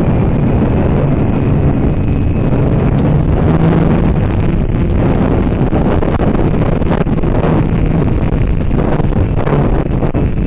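Loud, steady wind buffeting the microphone of a small RC flying wing in flight, with a faint steady whine beneath it.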